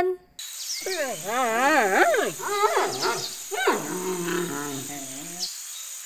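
Giant panda calling: about three wavering calls in a row, each rising and falling in pitch, the last one lower and steadier. The calls stop about half a second before the end.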